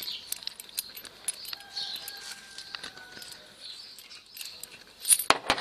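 Small scattered clicks and rattles of a clutch cable's end fitting being handled and worked by hand, with a few louder, sharper clicks near the end.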